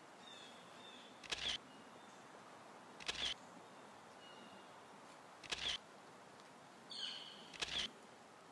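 Camera shutter clicks, four of them about two seconds apart, over a low steady hiss with a few faint bird chirps between.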